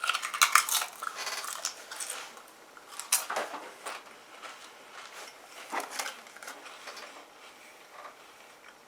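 Someone chewing Pringles potato crisps: a dense run of crunching over the first couple of seconds, then occasional crunches that thin out toward the end.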